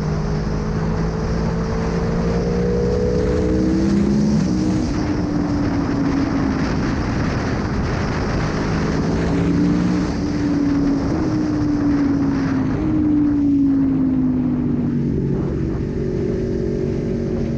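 Aprilia Tuono 1100's V4 engine under way, its pitch climbing under throttle and dropping sharply at a gear change about four seconds in, then rising and falling again with throttle changes, over steady wind rush.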